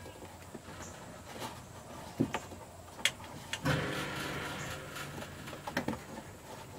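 Plastic engine-compartment air vent duct being pushed back into place over its mounting nubs by hand: scattered clicks and knocks of plastic, with a creaking rub a little past halfway that lasts about a second.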